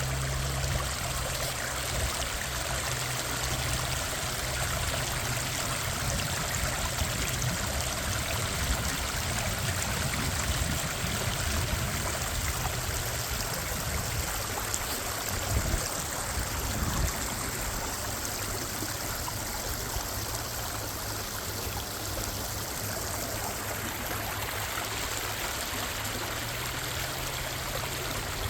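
Water of Minnehaha Creek rushing and splashing steadily, with a low rumble underneath.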